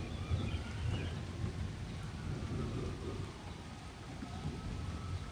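Thunder rumbling low and continuously, strongest in the first couple of seconds and easing a little toward the end.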